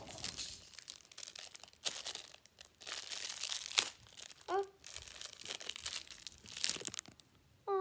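A small toy packet's wrapper crinkling and tearing as it is worked open by hand, with crackles throughout. A brief vocal sound comes about halfway through.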